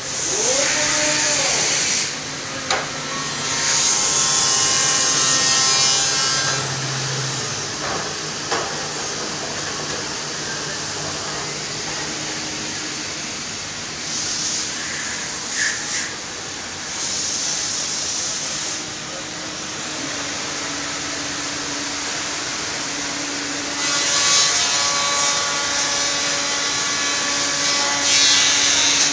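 Weinig Conturex woodworking CNC machining centre cutting timber. High cutting noise comes in about five bursts of a few seconds each over a steady machine hum.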